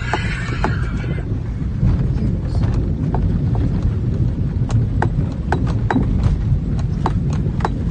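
Nissan Patrol's 4.2-litre straight-six diesel running with a heavy low rumble as it drives through deep river water, with irregular sharp knocks and clicks throughout.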